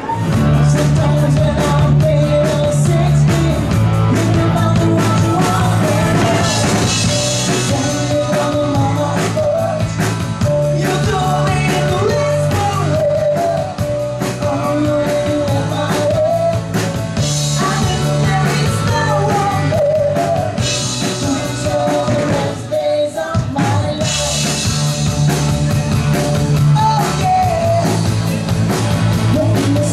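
Live band playing a rock-and-roll song: a singer over electric guitar, bass and drum kit, with a steady beat.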